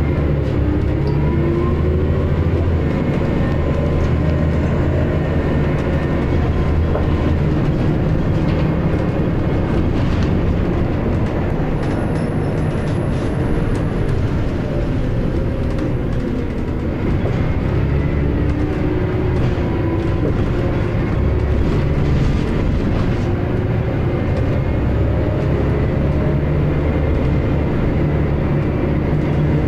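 Scania L94UB single-decker bus heard from inside the saloon while under way: its rear-mounted diesel engine and ZF automatic gearbox running steadily, with road noise. About halfway through the engine note dips briefly and then picks up again.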